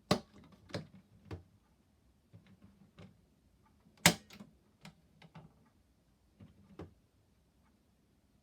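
Irregular sharp clicks and knocks, the two loudest right at the start and about four seconds in, with lighter taps between.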